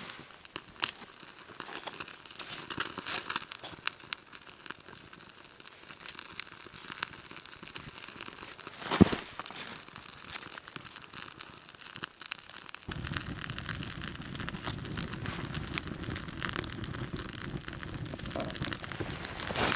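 A small campfire of bark strips and twigs crackling and popping as it catches, with bark being crinkled and handled. There is one sharp knock about nine seconds in. A steady low rushing noise comes in about two-thirds of the way through.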